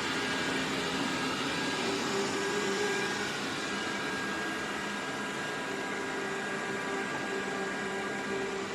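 Dreame L10s Pro Gen 3 robot vacuum running: a steady whirring motor noise with a faint hum, slightly louder for the first few seconds.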